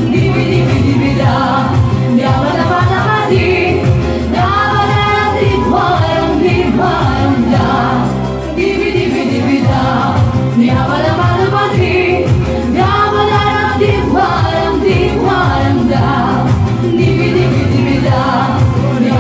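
A voice singing a song over an accompanying music track.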